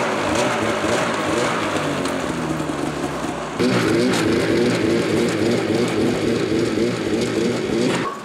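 Arctic Cat Hardcore snowmobile's two-stroke engine running and being revved, its track spinning on the snow; the engine note wavers up and down and gets louder about three and a half seconds in.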